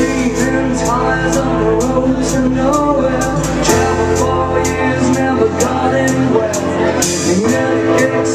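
Live rock band: a male singer sings over a strummed acoustic guitar, bass and drums, with the drummer keeping a steady beat of about three cymbal strikes a second. It is heard through a pocket camcorder's built-in microphone.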